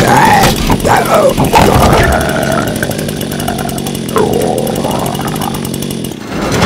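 Chainsaw engine revving, its pitch rising and falling, loudest in the first two seconds and then running lower and quieter.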